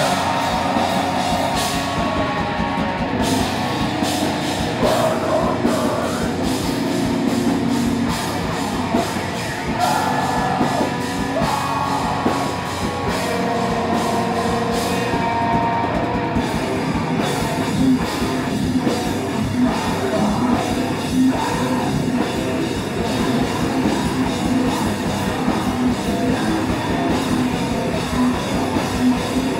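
Live heavy rock band playing loud: distorted electric guitar, bass guitar and drum kit, with a singer shouting vocals into a microphone.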